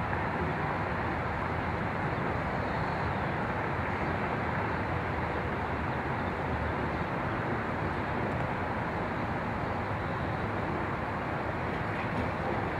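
Metrolink diesel locomotive running steadily as its passenger train rolls slowly in: a constant, even engine sound.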